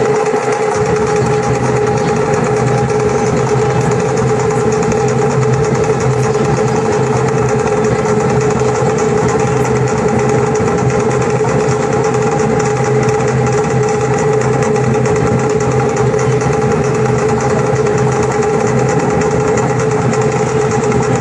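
Fast, unbroken Tahitian drumming on to'ere slit-log drums, a rapid steady roll of beats, played over loudspeakers as dance music.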